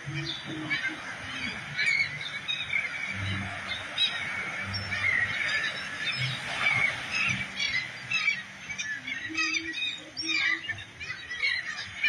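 A large flock of seabirds calling at once over the water: a dense chorus of many overlapping squawks, with some short lower notes mixed in.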